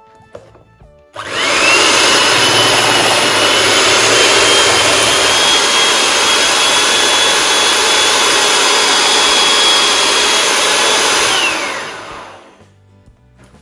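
Electric mixer beating butter with icing sugar: the motor spins up about a second in, runs steadily with a high whine for about ten seconds, then winds down and stops.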